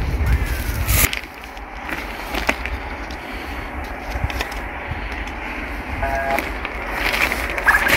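Footsteps scuffing over dry grass and dirt, with wind buffeting the microphone in the first second and a few short chirps later on.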